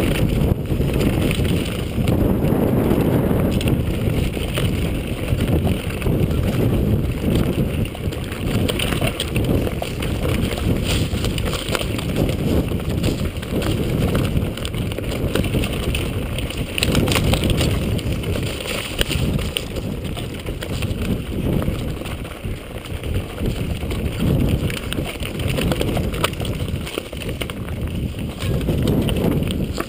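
Wind buffeting the microphone: a loud, unsteady low rumble that rises and falls throughout.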